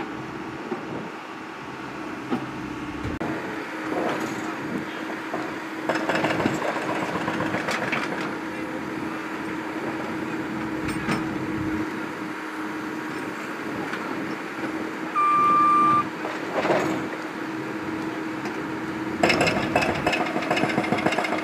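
Backhoe's diesel engine running with a steady hum while its bucket scrapes and knocks into broken concrete rubble, with clattering of concrete chunks several times. A single electronic beep sounds about three-quarters of the way through.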